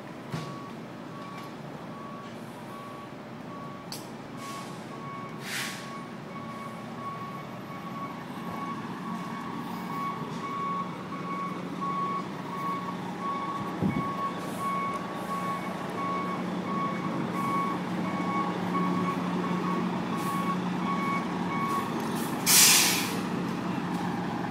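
A heavy truck backs up with its reversing alarm beeping evenly, about once a second, over its running engine. The beeping stops and the air brakes let out a short, loud hiss near the end as the truck halts.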